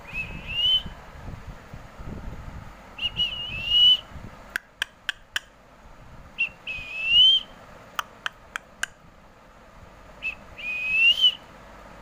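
A whistled phrase, a short note and then a longer rising whistle, repeated four times at intervals of a few seconds. Between the phrases come two quick runs of short sharp clicks.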